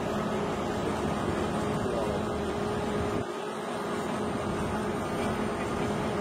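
Truck-mounted crane's engine running steadily with a constant hum while it hoists the bronze statue; the low rumble drops away abruptly about three seconds in.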